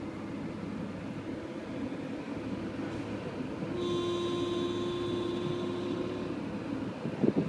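Unexplained noise from under the front hood above the right front wheel of a Porsche Boxster: a steady, pitched hum with a higher whine above it starts about four seconds in and holds for about two and a half seconds, over a steady low rumble. The noise recurs at intervals of about four seconds. A couple of short knocks come near the end.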